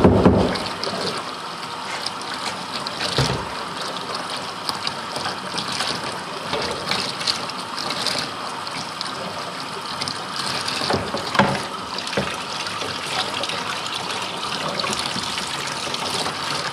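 Water running in a steady stream down into the nasal cavity of a boiled whitetail deer skull, flushing out loose tissue. A heavier, deeper rush dies away in the first second, and there are a few light knocks.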